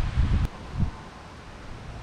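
Wind buffeting the microphone with a low rumble, cut off abruptly about half a second in with a click. It is followed by one short low thump and then a faint steady hiss of wind.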